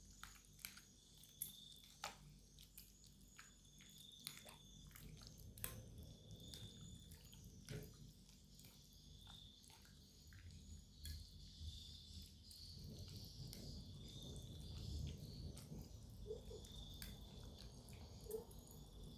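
Faint scattered clicks and taps of utensils against a bowl of noodles, over a short high chirp that repeats about every second and a half.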